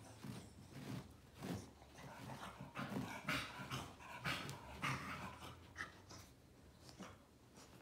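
A 15-year-old cocker spaniel rubbing and rolling on carpet: irregular rasping scrapes of fur and body against the pile, about every half second, with low grunting noises from the dog. It dies down near the end.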